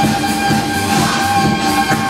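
Loud electronic dance music: a held synth note over a steady beat of about two pulses a second.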